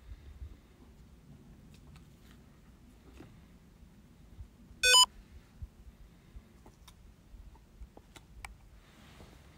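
A short electronic beep about five seconds in: a quick quarter-second run of rapidly changing pitches. It stands out over faint scattered clicks and handling noise.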